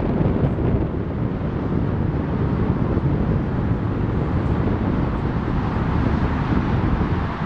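Steady, distant jet rumble from the Snowbirds' formation of CT-114 Tutor jets passing overhead, mixed with wind buffeting the microphone.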